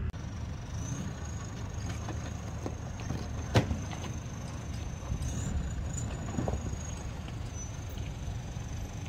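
Off-road 4x4 vehicle's engine running at low revs, with a sharp knock about three and a half seconds in and a fainter one a few seconds later. A thin, steady high-pitched tone runs above it.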